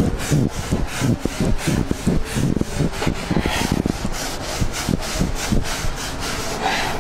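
A blackboard duster wiping chalk off a chalkboard, in quick back-and-forth strokes of about three a second.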